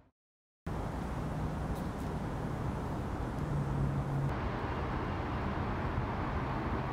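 A brief dead-silent gap, then steady outdoor background noise with a low hum underneath.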